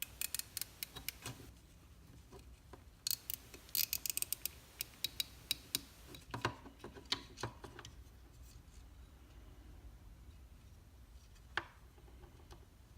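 Small nylon cable tie being pulled tight through its ratchet head: two quick runs of crisp clicks in the first few seconds, then scattered single clicks, one more well after the middle.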